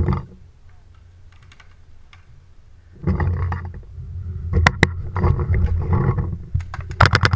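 Low rumbling movement and gear noise as a paintball player shifts behind a bunker, with two sharp paintball marker shots about two-thirds of the way through. Near the end a rapid string of paintball shots begins, about ten a second.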